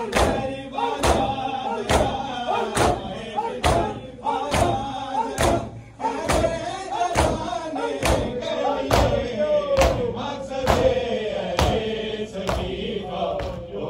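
Mourners performing matam, striking their chests with open hands in unison a little more than once a second, in time with a group of men chanting a noha, a Shia lament.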